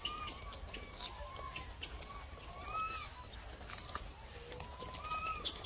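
A string of short, bird-like calls, each rising and falling in pitch, one or two a second, with faint clicks of chewing between them.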